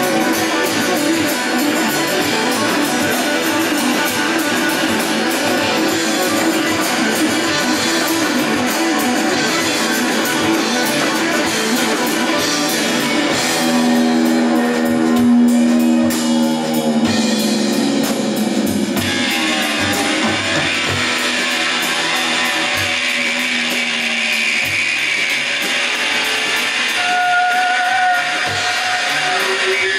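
Live band playing an instrumental passage: electric guitars, electric bass and a strummed acoustic guitar, with long held guitar notes about halfway through.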